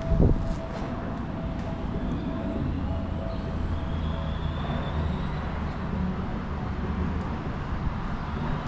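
Steady low rumble of background road traffic, with one low thump just after the start.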